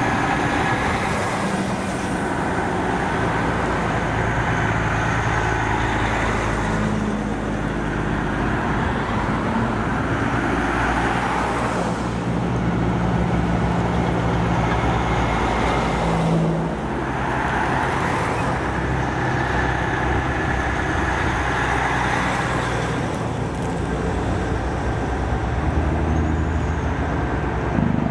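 Heavy diesel trucks passing one after another, with a few cars among them; each one's engine noise swells as it nears and fades as it goes by, several times over.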